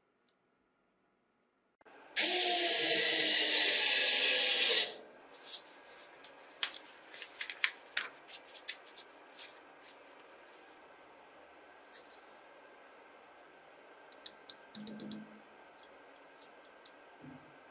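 An electric drill runs loudly for about three seconds and stops abruptly. Then comes paper rustling with a string of light clicks and taps, and a few faint ticks near the end.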